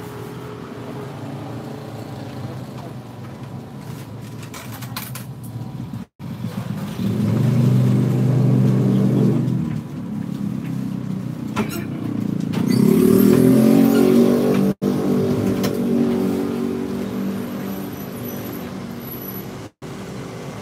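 Motorbike engines running and pulling away, one swelling up about seven seconds in and a second, revving with rising pitch, about twelve seconds in, then fading.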